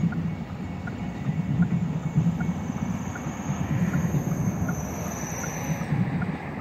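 Amtrak passenger train of bi-level Superliner cars rolling past, a steady low rumble of wheels on rail.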